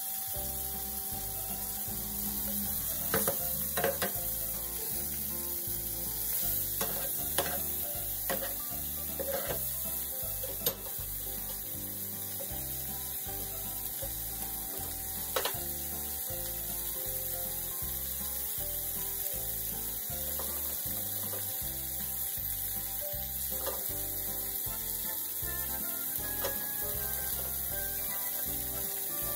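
Steak frying in melted butter in a nonstick pan: a steady sizzle, with a few short taps and clicks over it.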